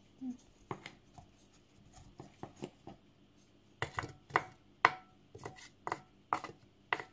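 A wooden spoon knocking against dishes as apple slices are spooned into an aluminium cake pan: a run of light, irregular taps and knocks, few at first and busier in the second half.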